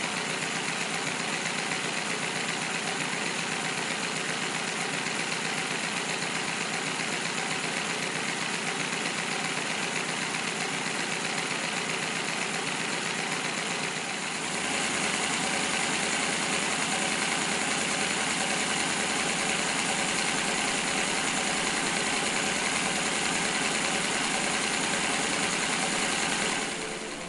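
Handmade Patelo miniature W-32 engine (47.5 cm³) running steadily, a dense, even mechanical whir. About halfway through it turns a little louder and brighter.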